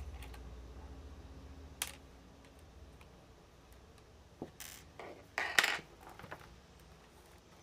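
Scattered small clicks and clatter of metal and hard plastic: a screwdriver taking screws out of an HP laptop's bottom case and the case being handled. A cluster of sharper knocks comes about five and a half seconds in.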